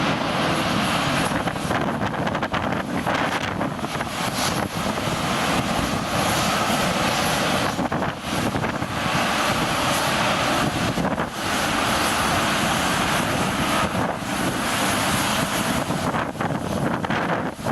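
Jet engines of a landing Boeing 747-400F cargo jumbo, a continuous loud rushing roar that wavers unevenly, with gusty wind on the microphone.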